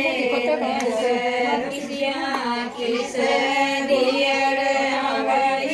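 A group of women singing a traditional folk wedding song together, in long held melodic lines, the song sung while oil is applied to the groom.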